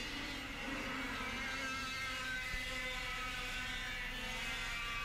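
A pack of 100cc two-stroke kart engines running at high revs on track, several engine notes overlapping, their pitches shifting slowly as the karts go past.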